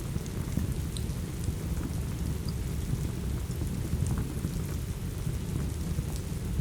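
Steady rain with a low, continuous rumble underneath, mixed with sparse small crackles and snaps from a wood fire in a fireplace.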